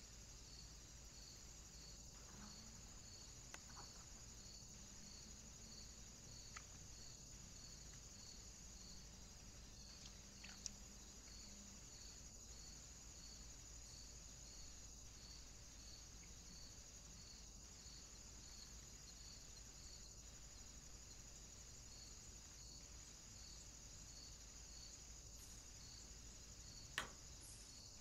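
Near silence: a faint steady high hiss with a faint, evenly repeating chirp-like pulse, broken by a few soft clicks, the clearest near the end.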